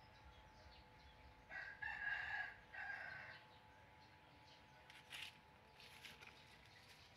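A rooster crowing once, about a second and a half in, in a call of two or three parts lasting about two seconds.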